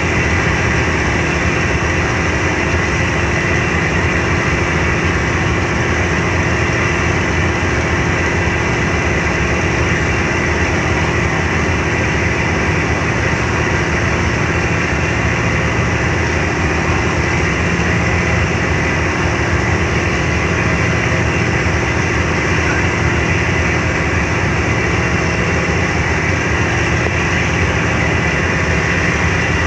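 Car ferry under way: its engines give a steady drone, with a rushing hiss of churned water and air over the deck.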